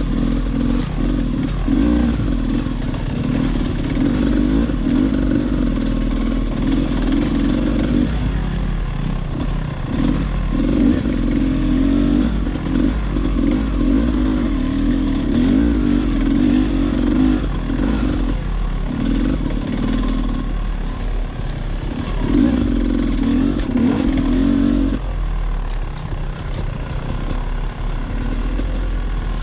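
Dirt bike engine running under load on a trail, its note rising and falling as the throttle is worked, over a steady rush of wind and riding noise. The engine note drops back for a few seconds near the end before picking up again.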